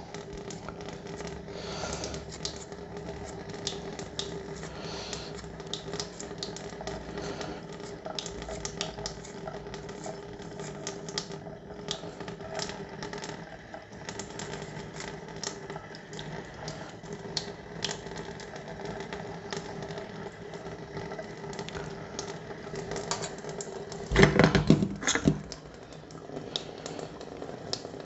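Tap water running into a stainless-steel sink while a small brake caliper part is scrubbed by hand with a soapy Scotch-Brite pad, with light scraping, rattling and small clicks. Near the end come a few louder knocks against the sink.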